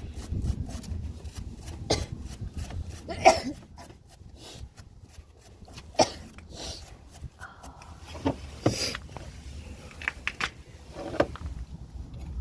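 A hand wire brush scrubbing rust off metal suspension parts: irregular short scrapes and clicks, with a few louder metal knocks and clanks.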